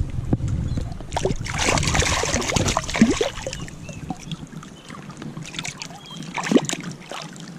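Shallow river water splashing and swirling around hands as a small caught fish is released, with the loudest splashing about two seconds in. Wind rumbles on the microphone and stops about four and a half seconds in.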